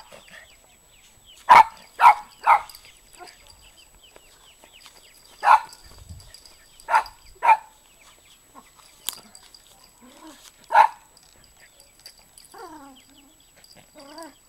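A young dog making short, sharp bursts of sound, seven in all: a quick run of three, then single ones and a pair spread over several seconds. A faint wavering whine follows near the end.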